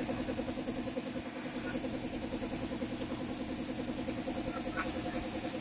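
A motor running steadily with a fast, even pulse.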